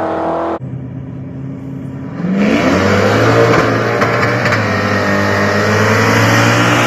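Two nitrous-fed street-race cars, a C6 Corvette and a Malibu, launching and running at full throttle toward the listener. The sound drops away suddenly about half a second in, then comes up loud with a rising engine pitch about two seconds in and stays loud and steady.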